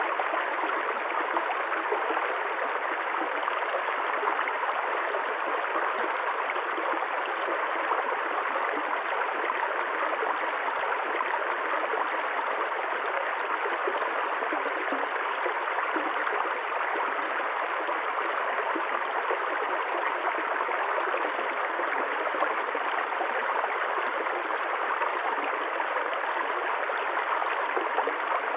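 Running water flowing steadily, a continuous even rush like a stream.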